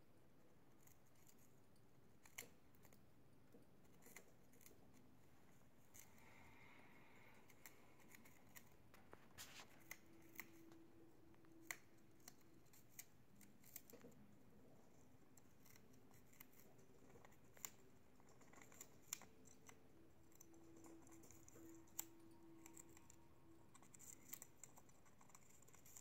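Budgerigar chewing and shredding a strip of balsa wood with its beak: faint, sharp, irregular clicks and snips, scattered every second or so.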